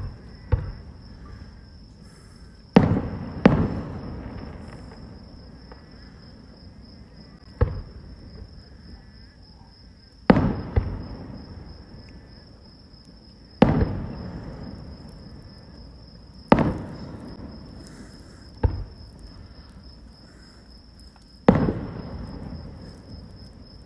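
Distant aerial fireworks shells bursting: about eleven sharp bangs a few seconds apart, some in quick pairs, each trailing off in a rumbling echo. A steady high insect trill runs underneath.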